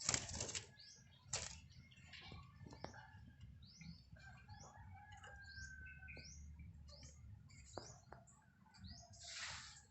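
Pet lovebirds chirping and twittering in many short rising chirps, with one longer whistled note in the middle. A few brief rustles break in, the longest near the end.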